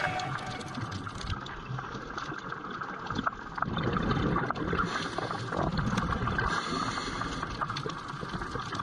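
Underwater recording through a dive camera's housing: a steady wash of water noise with gurgling and scattered faint clicks, growing louder about three and a half seconds in.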